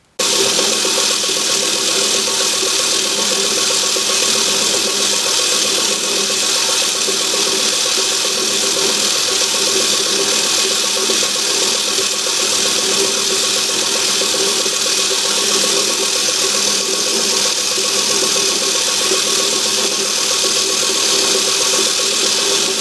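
Myford ML7 metal lathe running steadily under power, a constant mechanical hum with a high hiss, as the workpiece is machined.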